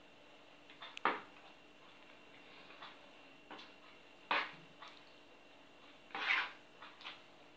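Fork stirring soft sweet-bread dough in a well of flour on a wooden tabletop, with irregular sharp clicks and short scrapes as it knocks against the table, the loudest about a second in, near the middle, and past six seconds.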